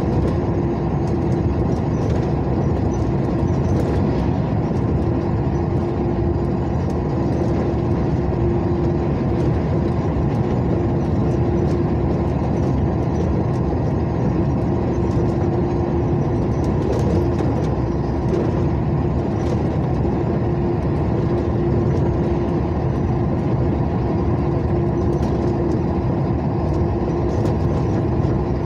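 A moving road vehicle's engine and tyre noise on asphalt, running steadily without letting up, with a constant hum.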